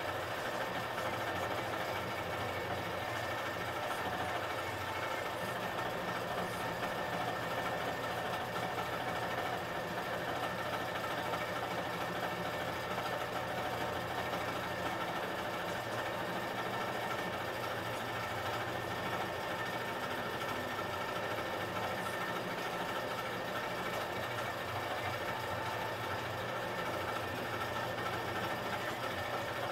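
Embroidery machine stitching steadily, a constant mechanical running with no pauses.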